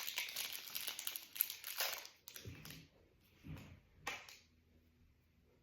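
Plastic packaging crinkling as it is handled for about two seconds. Three separate soft knocks of handling follow, the last about four seconds in.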